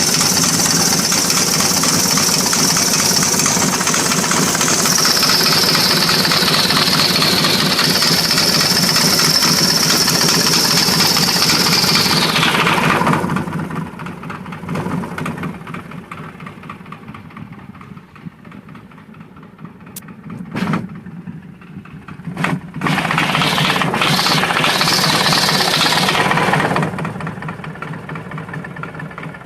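S&S 80 cubic inch Evo V-twin motorcycle engine held at raised revs with a high whine for about thirteen seconds, then dropping to a steady idle. Two sharp clicks come through the idle, then the engine is revved again for a few seconds and settles back to idle. It carries a knocking sound that the owner is unsure about.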